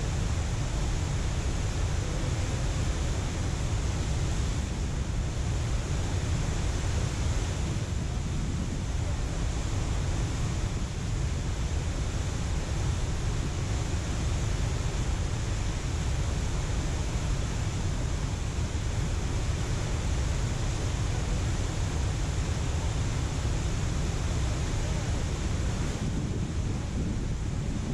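Steady rush of water pouring through a dam spillway, with wind buffeting the microphone and adding a heavy low rumble.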